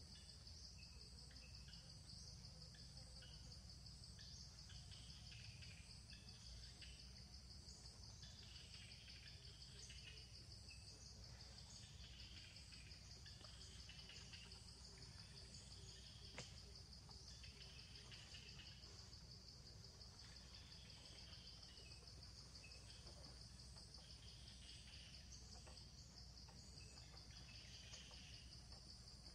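Faint outdoor ambience: a steady, high-pitched insect trill, with short bird chirps coming and going and one faint click just past halfway.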